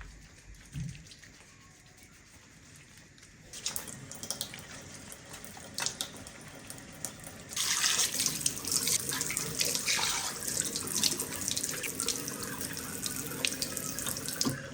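Tap water running into a sink while a face is rinsed under it. The water starts a few seconds in with some clicks and splashes, and runs harder from about halfway.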